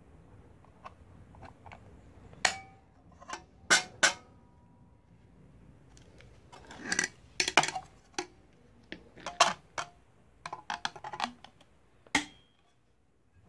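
Locking pliers clicking and clanking against a metal template and aluminium sheet as they are adjusted and clamped on: scattered sharp metallic clicks and clinks, a few with a short ring.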